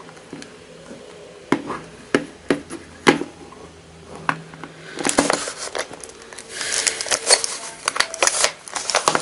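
Plastic 3x3 Rubik's cube being turned by hand, its layers clicking as they snap round. At first there are a few separate clicks, then about halfway through a busier run of rapid clicking and rattling.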